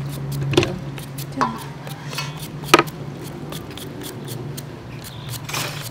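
Knife shaving thin strips of vegetable into a stainless-steel colander: a run of quick, light cutting clicks with a few louder clinks, over a low steady hum.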